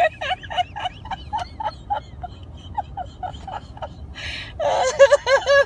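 A woman's wordless vocal sounds: a quick run of short, pitched sounds, then a breath about four seconds in and louder sounds near the end, in frustration at the car that won't start.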